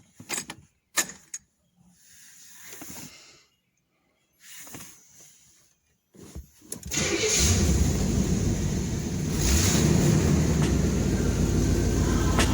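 A few scattered clicks and short soft noises, then about seven seconds in a vehicle engine starts and keeps running loudly and steadily with a low rumble.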